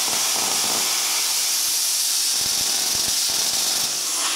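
Luch Profi CUT-50 plasma cutter torch firing at 30 amps: a loud, steady hiss of air and arc, with a run of sharp crackles in the middle. It is cutting steel but does not cut through cleanly.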